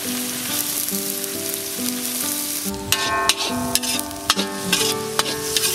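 Chopped onions sizzling in hot oil with whole spices in a kadai, a steady hiss. From about three seconds in, a ladle stirring them knocks and scrapes against the pan in quick, irregular clicks. Background music plays underneath.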